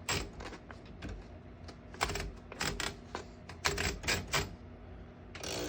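Keys of a 1926 Underwood No.5 manual typewriter striking in scattered, irregular clicks. About five and a half seconds in there is a longer mechanical rasp.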